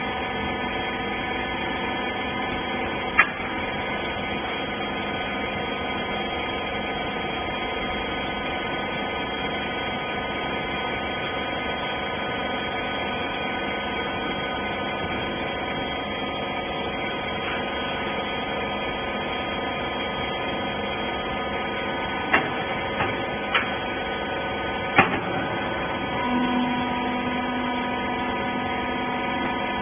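Hydraulic clothes baler running: a steady electric motor and pump hum made of several fixed tones. A sharp click or knock about three seconds in and a short cluster of them near the end, after which a lower steady tone joins the hum.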